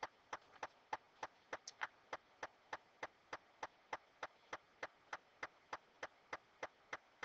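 Faint, fairly even clicks or taps repeating about three times a second.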